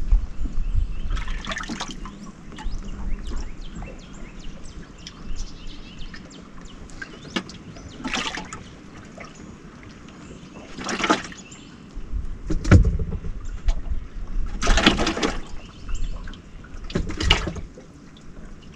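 Water lapping and slapping against the hull of a small aluminum jon boat in short, irregular splashes, about six of them, over a low rumble that swells at the start and again about two-thirds of the way through.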